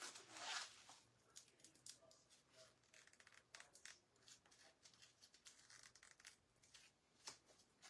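Faint rustling and light clicks of paper scraps and craft supplies being gathered up and handled on a work table, with a slightly louder rustle about half a second in.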